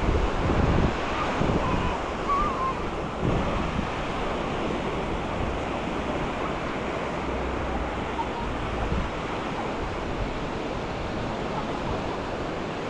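Sea waves washing onto the shore in a steady wash of surf, with wind buffeting the microphone, heaviest in the first few seconds.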